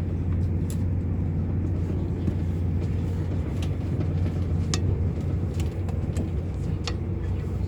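Interior running noise of a Class 221 Super Voyager diesel multiple unit in motion: a steady low rumble of the underfloor diesel engine and wheels on the track, with several short sharp clicks scattered through it.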